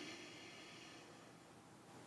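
Near silence in a pause between snores: a faint breathy hiss fades away over the first second.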